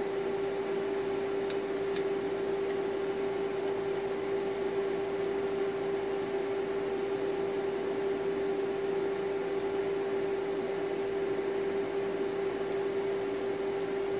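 Steady fan-like machine hum with one strong unchanging tone, and a couple of faint clicks.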